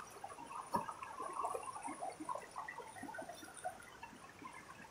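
Faint trickling of a shallow rocky stream, with small drips and gurgles and a light click about a second in.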